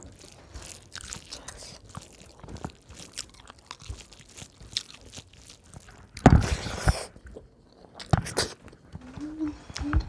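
Close-miked chewing and biting of food, with many small wet clicks, and a louder crunching burst about six seconds in that lasts under a second.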